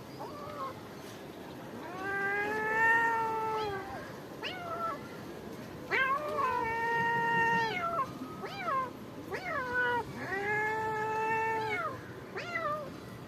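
Cats yowling in a fight: three long drawn-out yowls of about two seconds each, bending down in pitch at their ends, with shorter rising and falling cries between them.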